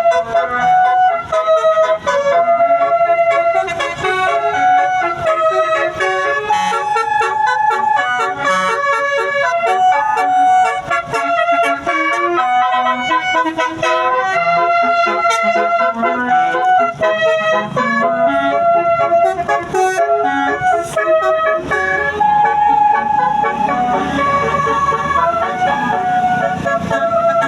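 Basuri telolet horn on an Indonesian tour bus playing a fast melody of short, stepped notes. A low rumble joins in during the last few seconds.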